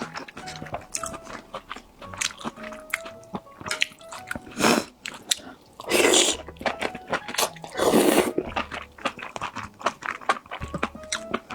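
Someone biting into and chewing crunchy food close to the microphone, with many crisp clicks and three loud crunches in the middle, over light background music.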